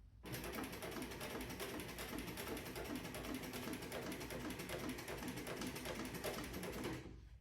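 Sewing machine running at a steady speed, stitching with a fast, even ticking; it starts just after the beginning and stops near the end.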